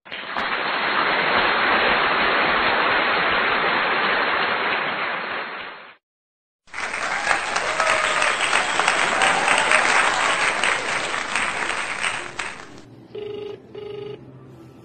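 Clapping and cheering in two bursts, broken by a moment of silence. Near the end, a phone line's ringback tone: steady pulsed rings as an outgoing call rings through.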